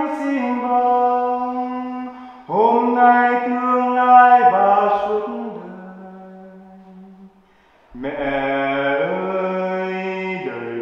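A man singing a Vietnamese hymn to the Virgin Mary unaccompanied, one voice holding long, drawn-out notes. A phrase fades away about five to seven seconds in, and after a short breath he takes up the next phrase about eight seconds in.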